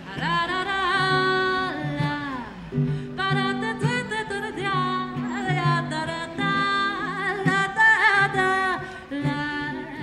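A woman singing over her own strummed ukulele, amplified through a microphone, with some long held notes.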